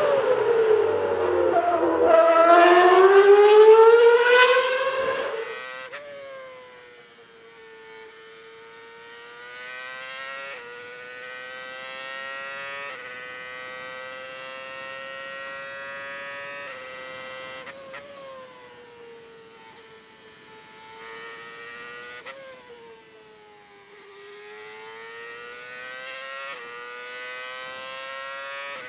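Formula 1 car engine: a loud pass with its whine rising sharply in pitch over the first few seconds, then heard far off, climbing in pitch and stepping back through gear changes, falling as it slows and rising again near the end.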